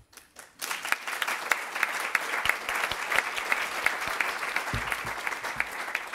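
Audience applauding: a few scattered claps at first, then full applause from about half a second in.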